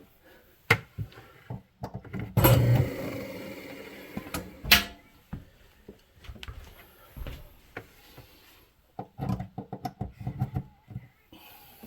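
Hammer striking a screwdriver to knock out the dishwasher-drain plug on an InSinkErator Badger 5 garbage disposal. There are a few light clicks, then a hard strike about two seconds in that rings on for a couple of seconds, a second sharp strike near the five-second mark, and a run of lighter knocks and handling near the end.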